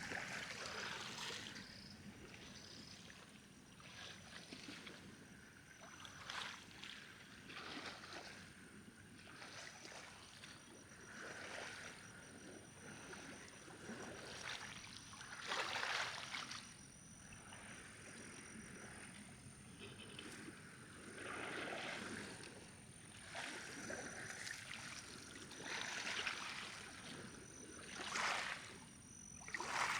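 Small waves of the Castanhão reservoir lapping and splashing, coming in irregular swells every second or two, the strongest about halfway through and near the end.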